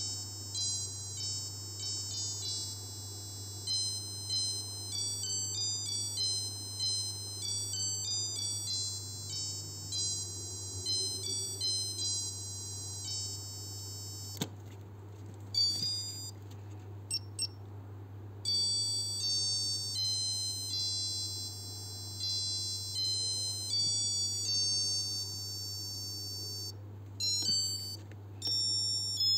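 Casio H-104 (module 82) melody alarm watch's piezo buzzer playing its electronic melody as a run of thin, high-pitched beeping notes. About halfway through the tune stops with a button click and a few short notes, then starts again, pausing briefly once more near the end. A steady low hum runs underneath.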